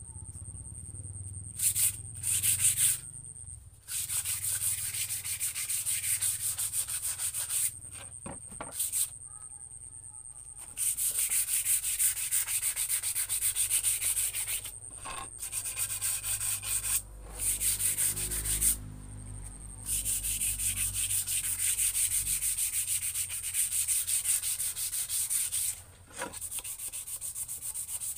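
Sandpaper rubbed by hand over a wooden boat paddle: fast back-and-forth scratching strokes in long runs that stop and start several times. This is finish sanding to leave the blade smooth.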